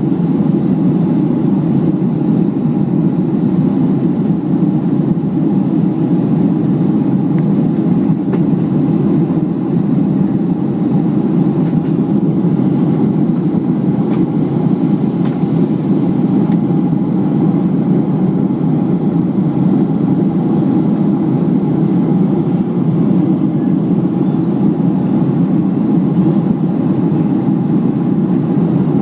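Steady cabin noise of a Boeing 737 airliner in flight: the jet engines and rushing air give an even, low noise with a faint steady tone above it, unchanging throughout.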